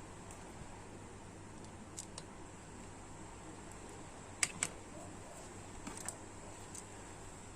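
Light, sharp clicks of small hard objects being handled, in three quick pairs (the middle pair loudest), over a steady low hum and hiss.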